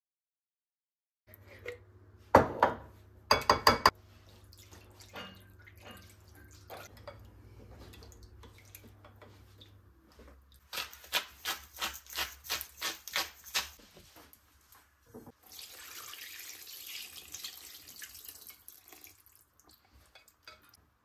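Kitchen work sounds: a few sharp clatters, then a run of about a dozen evenly spaced knocks, about three a second. After that a tap runs for a few seconds.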